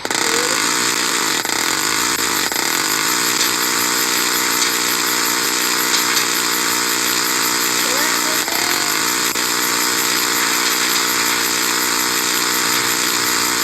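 Steady, loud drone of a light aircraft's engine and propeller, setting in abruptly and holding even.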